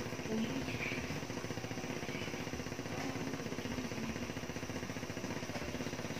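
Thick tomato sauce simmering in a nonstick frying pan on an infrared cooker, heard as a steady, fast rattling drone.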